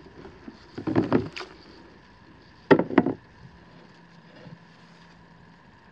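Knocks and clatter from the Ninja Sizzle griddle plate being handled in a plastic tub of soapy water: a short cluster of knocks about a second in, then two sharp knocks close together a little before the middle.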